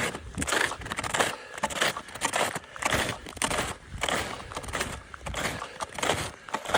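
Footsteps crunching in snow, one crunch about every half second at a walking pace.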